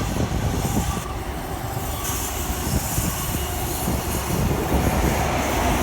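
Coaches of an HST (InterCity 125) train rolling past, a steady rumble and rush of wheels on rail.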